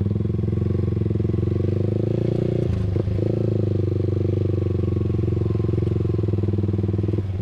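Yamaha R15 V3's single-cylinder engine idling steadily through an R9 H2 series aftermarket exhaust with its DB killer removed, with a brief break in the sound about three seconds in.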